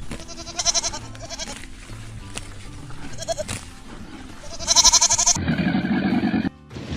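Goat bleating: several short, quavering bleats, the loudest and longest about four and a half seconds in. A duller call follows and cuts off suddenly near the end, over soft background music.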